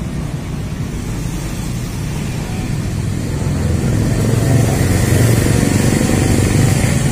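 A low, steady engine rumble from a motor vehicle, getting louder about four seconds in.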